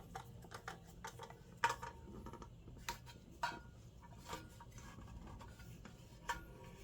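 Hand screwdriver turning a screw into the holder: faint rubbing with a few small, sharp clicks and clinks spread through.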